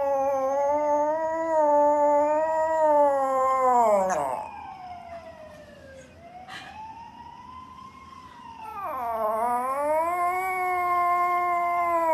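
A small poodle howling: two long, wavering howls of several seconds each, with a fainter rising-and-falling howl between them.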